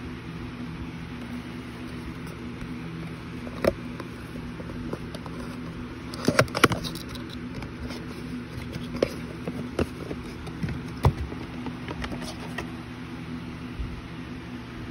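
Handling noises while unboxing a bear-shaped watch stand: scattered taps, clicks and rustles of the box and stand, the loudest cluster about six seconds in, over a steady low hum.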